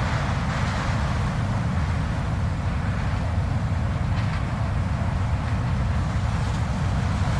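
Blizzard wind blowing with a steady deep rumble, and gusts of hiss that swell and fade, once near the start and again about four seconds in.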